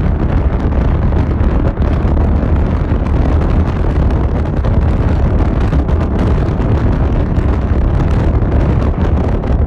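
Strong wind buffeting the microphone: a loud, steady, rumbling rush with no break.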